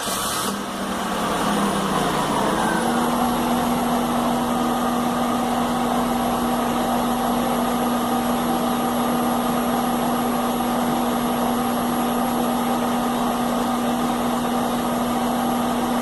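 Chevy Venture's 3.4-litre V6 running at idle, with a steady whine that dips and then settles to one pitch within the first few seconds. The engine has developed a rough idle that feels as if it wants to stall, which the owner is checking with a fuel pressure regulator test.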